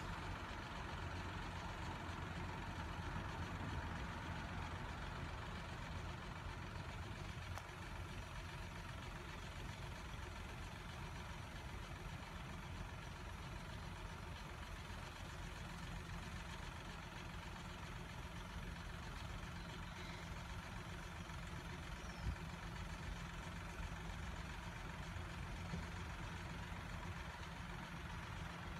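Steady low hum of idling engines.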